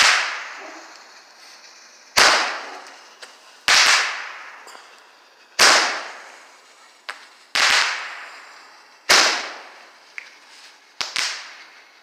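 Roman candle firing its shots: about seven sharp, loud bangs, one every one and a half to two seconds, each ringing off before the next, with a few smaller pops in between.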